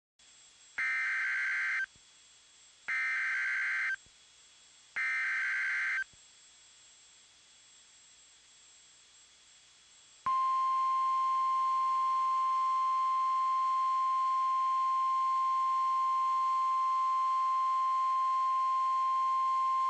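Emergency Alert System SAME header: three bursts of warbling digital data tones, about a second each and a second apart. After a pause of about four seconds comes the NOAA Weather Radio warning alarm, one steady single-pitched tone held for about ten seconds, sounded ahead of a tornado warning.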